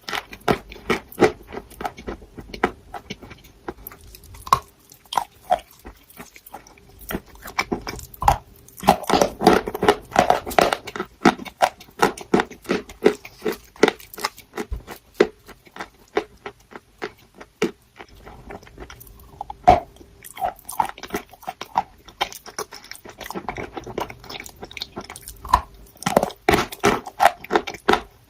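Crunchy chalk being bitten and chewed close to the microphone: a run of sharp, crackling crunches. The crunching comes in two denser, louder flurries, one about a third of the way in and another near the end.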